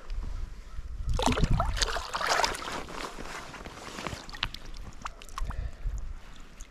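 Water splashing as a smallmouth bass is let go into a shallow river: a burst of splashing about a second in, then scattered drips and small trickles.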